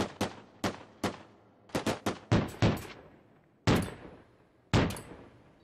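Rifle gunfire from two shooters: a rapid, irregular string of shots over the first three seconds, then two single, heavier shots about a second apart, each dying away slowly.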